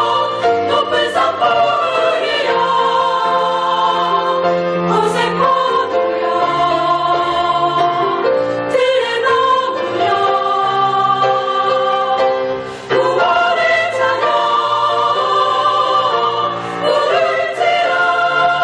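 Choir singing a hymn in long held chords, phrase after phrase, with a brief breath break about two-thirds of the way through.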